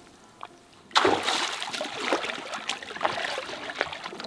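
Lake water splashing and sloshing as a person wades and steps up onto a floating log raft. It starts suddenly about a second in, with irregular splashes after that.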